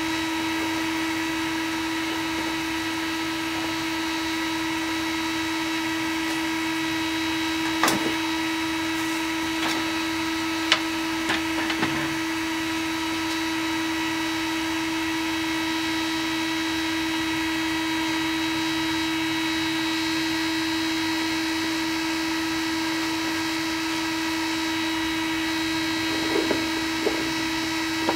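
Home-built 3D printer running, a steady machine hum on one held pitch with fainter higher tones above it. A few sharp clicks come about eight to twelve seconds in and again near the end.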